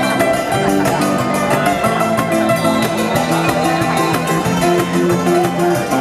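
Live instrumental band: two Thai khims (hammered dulcimers) played with hammers, together with acoustic guitar, electric bass and cajón, in a fast, steady groove of quick struck notes.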